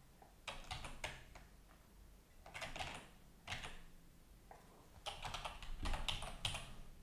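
Typing on a computer keyboard: faint, irregular keystrokes in short runs, with a busier run about five seconds in.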